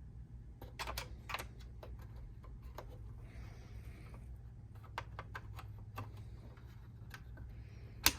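Scattered small plastic clicks and taps of desktop RAM sticks and their slot retention tabs being unlatched, pulled and pressed back into the memory slots, with one sharper click near the end.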